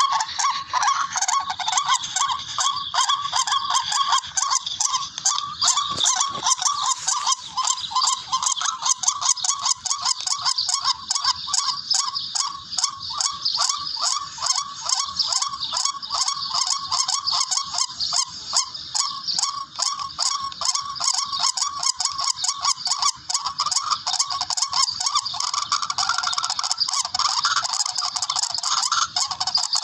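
A rail's harsh, repeated calls, the tikling call used as a hunting lure, going on without a break as a rapid run of notes, several a second.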